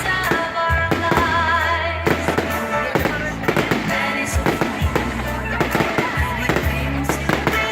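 Fireworks going off in a rapid, irregular string of bangs and pops, over music with a steady bass line and a wavering melody.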